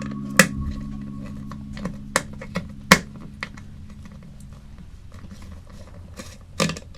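Irregular small clicks and taps of a precision screwdriver and tiny screws against the plastic speaker housing as the screws holding the charger port board are taken out. Quiet background music with steady tones runs underneath and fades out about five seconds in.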